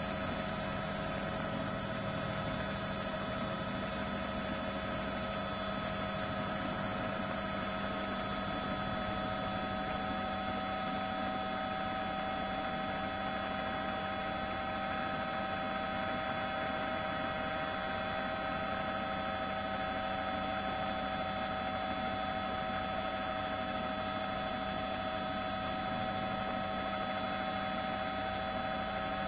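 Steady hum of a helicopter in flight heard from on board: several unchanging tones over an even rush of noise, with no change in pitch or level.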